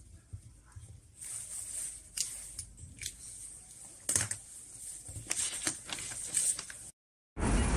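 Ballpoint pen scratching on paper, then sheets of paper picked up and rustled, with several sharp crackles. Near the end it cuts out and steady street traffic noise begins.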